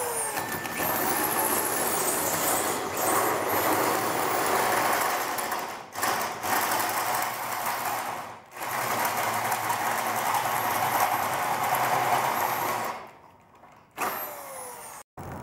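Handheld electric drill with a hole saw cutting through aluminum rigid conduit to bore a cope, a steady grinding whir with two short pauses, then stopping near the end.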